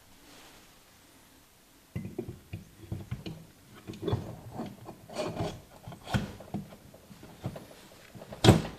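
Hands working on engine parts at a workbench: irregular rubbing and scraping with several knocks, starting about two seconds in, and one sharp, loudest knock near the end.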